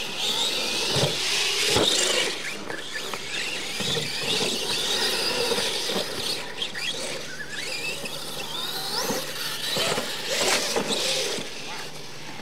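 Radio-controlled monster trucks racing on dirt: a high electric motor and gear whine that rises and falls with the throttle, over the hiss of tyres on loose dirt. A few sharp knocks are heard about a second in, at about two seconds, and again near ten seconds.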